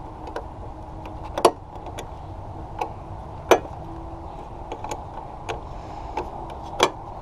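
Hand tools and metal parts clinking and knocking while a car battery is being unbolted: three sharp clinks a couple of seconds apart, with lighter ticks between, over a steady low hum.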